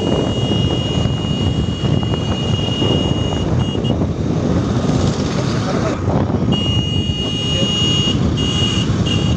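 Wind buffeting the microphone and road noise from a moving motorbike ride. A steady high-pitched tone sounds for the first few seconds, stops, and returns in the second half, ending in a few short beeps.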